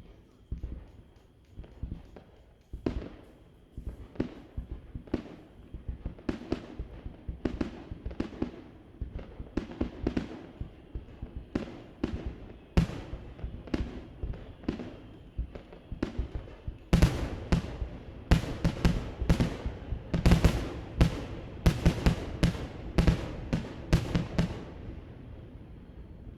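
Fireworks shells bursting: scattered booms, each with a trailing echo, that thicken into a rapid barrage of loud bangs for about the last eight seconds before stopping.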